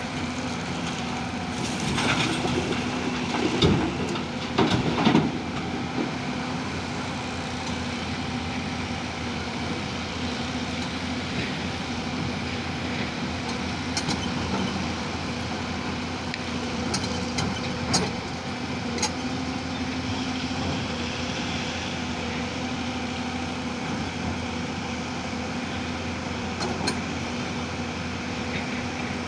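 Digging machine's engine running steadily, with a few louder clanks and knocks about two to five seconds in and again near the middle.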